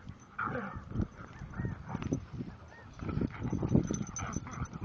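Dogs playing, giving several short high whining yelps over irregular low, rough noise.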